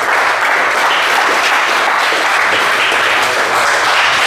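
A small group of people applauding, a steady dense clapping that holds at one level throughout.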